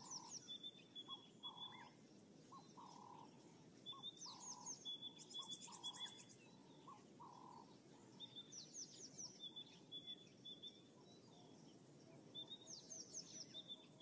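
Faint birdsong from the bush: several birds calling, with a recurring phrase of quick falling whistles and short high notes about every four seconds, a fast high trill partway through, and shorter lower notes underneath.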